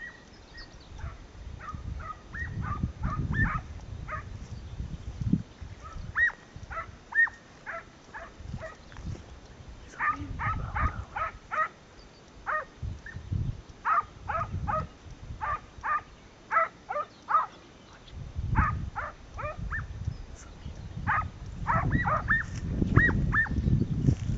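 Scent hound barking in quick runs of about four to seven barks, a brief pause between runs, repeating throughout: a hunting hound giving voice.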